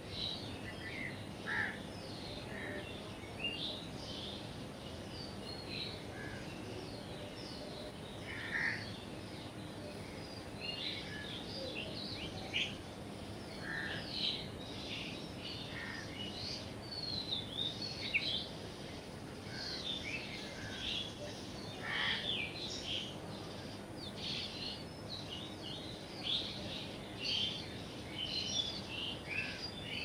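A busy chorus of many small birds chirping and twittering, short calls overlapping one another, over a steady background hiss.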